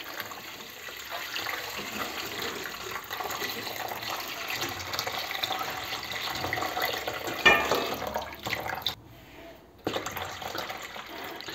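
Water poured in a steady stream from a jug into a stainless steel bowl of sugar, splashing into the bowl. The stream briefly dies down about nine seconds in, then picks up again.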